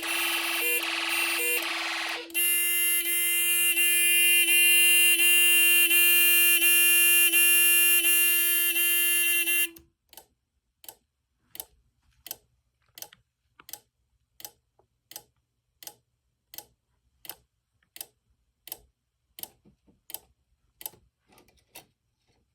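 Electronic fire-alarm tone from a home-built Snap Circuits alarm panel, first pulsing about two and a half times a second, then switching to one steady tone that cuts off suddenly just under ten seconds in. After it, a regular quiet clicking, about one click every 0.7 seconds, which blinks the panel light with each click.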